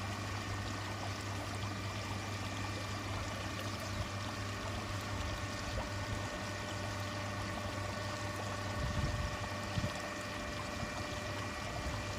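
Hydraulic lift for the decked roof over the koi pond filter house running as it raises the deck: a steady low hum with a few steady higher whine tones, over a wash of running water. The low hum drops away about nine seconds in, followed by a couple of low bumps.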